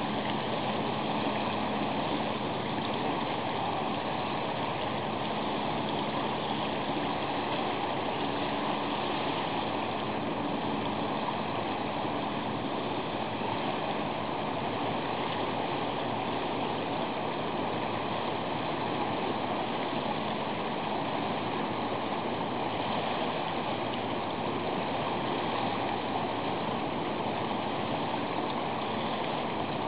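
Steady rushing wash of sea water against a concrete breakwater, with a faint low hum underneath.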